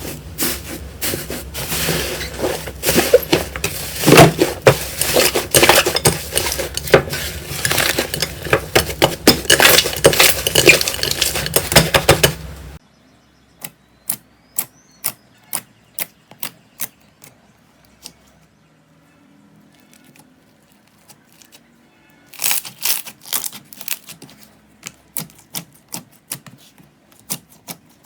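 Slime being squeezed and pressed by hand, making sharp clicks and pops. The clicking is dense for about the first half, thins to scattered single clicks over near quiet, and turns dense again near the end.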